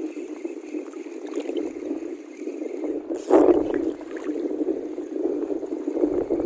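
Water sloshing and gurgling against the hull of a small boat, steady throughout, with one brief, louder noise about three seconds in.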